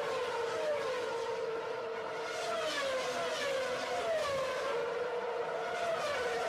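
Intro music: a held electronic tone with a short falling pitch glide repeating about once a second.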